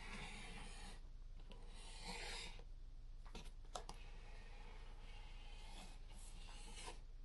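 Faint scraping and rubbing of hand work on cardboard, in a few short spells, with a few sharp clicks in the middle, over a steady low hum.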